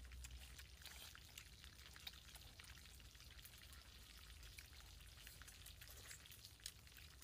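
Near silence: faint outdoor background with scattered light ticks and a low rumble.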